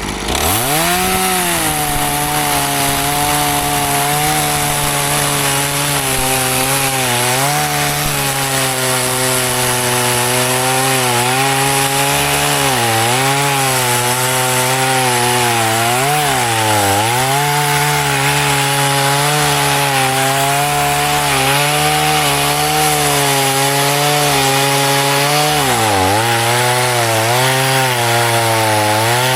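Electric chainsaw cutting oak firewood: the motor spins up at the start, then runs with a steady whine and the rasp of the chain in the wood. Its pitch sags several times as the chain bites in under load, most deeply around the middle and again near the end.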